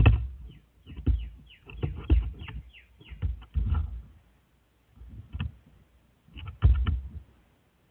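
A crow moving on a wooden deck rail right against the microphone: a series of irregular thumps and scrapes from its wing flaps and feet. The loudest come at the start, when it flaps its wings, and again near the end.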